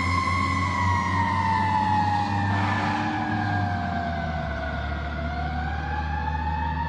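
Fire engine's siren wailing as the truck drives away: one slow fall in pitch over about four seconds, then a climb back up, over a steady low rumble.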